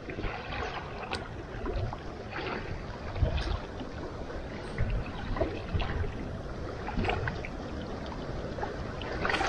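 Small waves lapping and splashing against the rocks at the lake's edge, with uneven wind rumble on the microphone.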